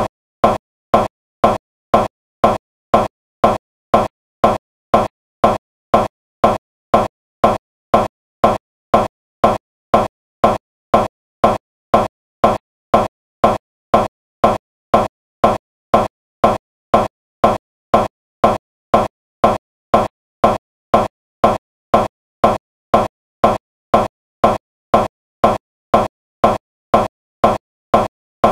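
A short pitched blip repeating evenly about twice a second, each one the same, like a stuck loop of a tiny sound fragment.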